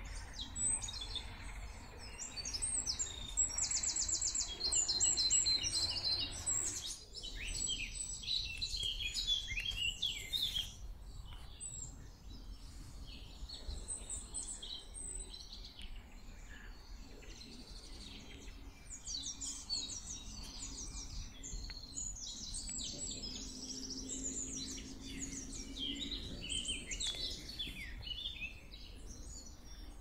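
Several songbirds singing and calling at once, overlapping chirps and rapid trills, busiest in the first ten seconds and again near the end. A soft rush of river water lies under the birds for the first several seconds, then fades.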